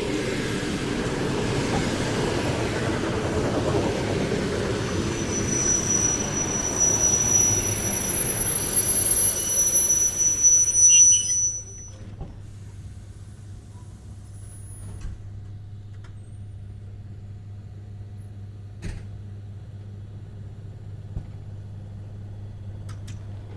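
A train running along the platform with a rumble and a high-pitched brake or wheel squeal that sets in about 5 seconds in and stops abruptly about 11 seconds in. After that only a steady low hum remains, with a few sharp clicks.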